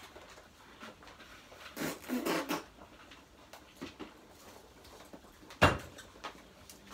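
Quiet room with a short muffled rustle about two seconds in and a single sharp knock a little past the middle, the loudest sound.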